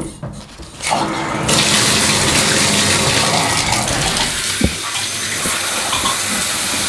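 Shower turned on about a second in, then water spraying steadily from the shower head onto the tiled stall.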